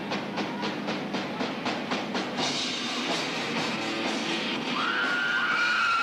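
Live rock band playing: a drum kit keeps a fast even beat of about five strikes a second, then the band fills out into a sustained wash about two seconds in, and a high held note, slightly sliding, comes in near the end.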